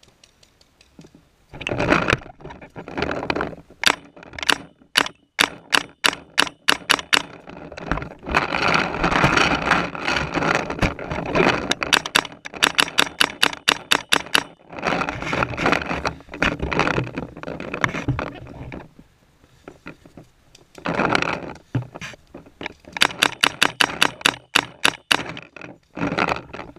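Paintball marker, the MacDev Droid, firing rapid strings of sharp shots at about five a second, in several volleys with short pauses between. A rough rushing noise fills some of the gaps between volleys.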